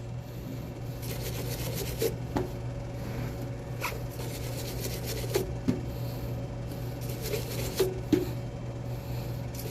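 Steel wire brush scrubbing a treadmill drive pulley in irregular rasping strokes, cleaning off the dirt behind a squeak, over a steady hum.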